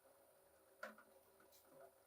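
Near silence, with one faint click a little under a second in and a soft scrape near the end.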